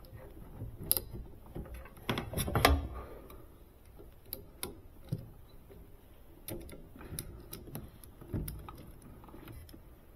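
Irregular clicks, taps and knocks of small metal parts being handled: bolts and a ground wire being fitted to a refrigerator condenser fan motor. There is a louder cluster of knocks about two and a half seconds in.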